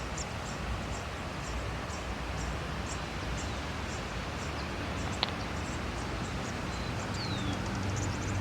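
Outdoor ambience: a steady background hiss with many short, high chirps repeating throughout, a single sharp click about five seconds in, and a brief falling whistle near the end, when a low hum also comes in.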